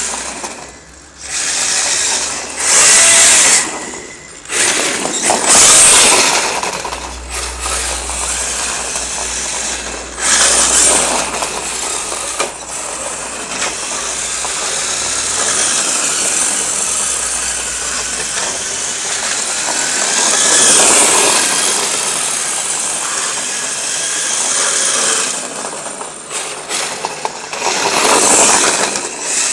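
Brushless electric motor of an RC drift car (EZ Run 5.5T on an EZ Run S10 ESC) whining and surging in repeated bursts as the car accelerates and slides, with short drops in between when it eases off.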